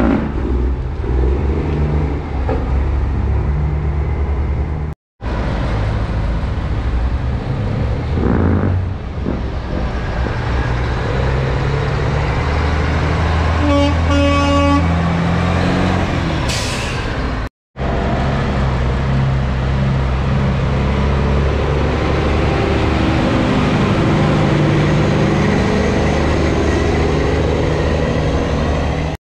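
Big-rig semi truck diesel engines running as the trucks pull away, with a horn blast of about a second roughly halfway through.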